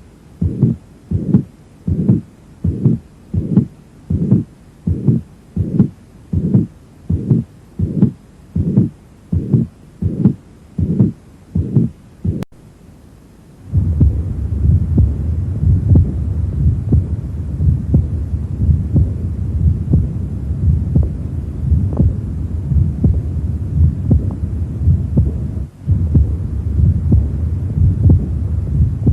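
Recorded heart sounds: a regular heartbeat of about 80 beats a minute. After a brief gap about halfway through, a second heart recording follows, its beats sitting under a continuous low rumbling noise, like a heart murmur.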